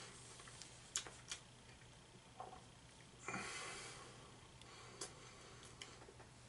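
Faint mouth clicks from chewing a soft, chewy cookie with the mouth closed, and one breath out through the nose about three seconds in.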